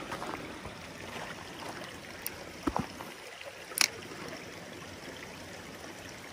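Shallow mountain stream running low, trickling over stones. A few short knocks and clicks stand out around the middle, the loudest just before four seconds in.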